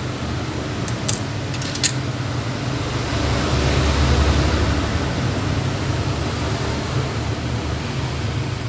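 Steady whirring hum of a fan or blower, swelling louder for a couple of seconds in the middle, with a couple of light clicks about a second in.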